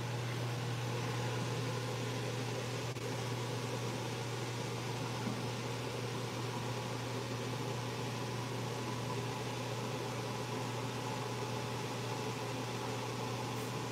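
Steady low mechanical hum with an even hiss that does not change.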